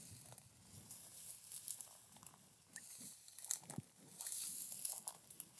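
Footsteps crunching through tall dry grass, with irregular crackling and rustling as stems brush against legs and clothing.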